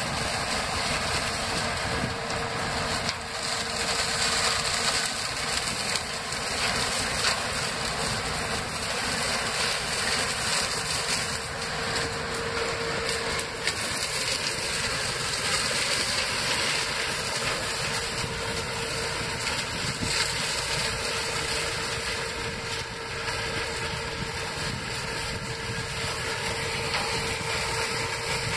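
Massey Ferguson 205 sugarcane harvester at work cutting cane: a steady machine noise of engine and chopping, with a steady whine running through it and the tractor hauling the bin beside it.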